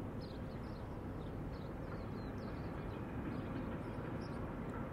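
Steady low outdoor rumble, with short high chirps from small birds scattered through it.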